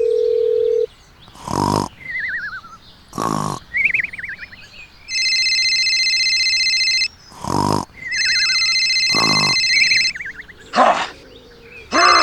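A string of dubbed sound effects: a steady dial tone that stops about a second in, short growl-like animal cries, chirpy falling warbles, and two long stretches of high electronic ringing tone.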